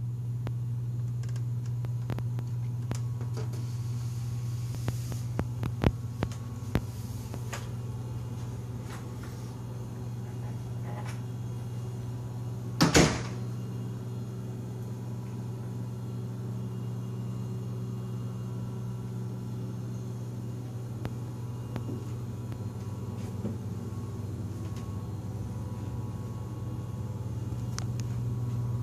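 Steady low hum, with a few sharp latch-like clicks around six seconds in and one loud knock at about thirteen seconds, from the apartment's entry door being worked.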